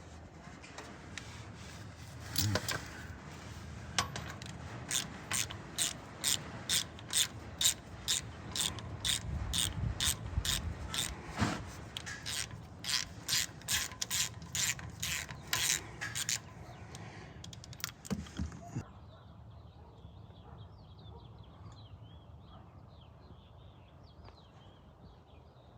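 Socket ratchet clicking in quick back-and-forth strokes, about two clicks a second, as a 17 mm oil drain plug is backed out; the clicking then stops.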